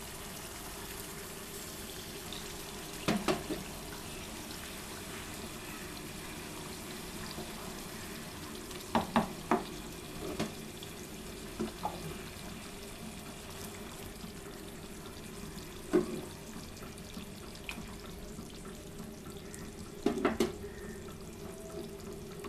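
Hot water being poured into a pan of frying rice, chicken and potatoes, a steady watery hiss and sizzle, with several sharp knocks against the pan spread through.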